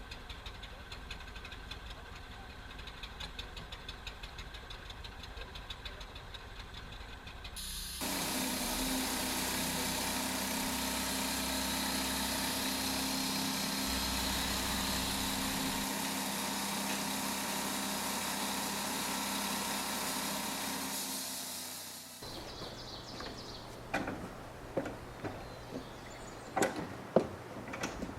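Sawmill engine running steadily, then about eight seconds in a much louder sawing noise starts abruptly as the blade cuts through the pine log. It holds steady for some fourteen seconds and then fades back to a lower engine hum, with a few sharp clicks near the end.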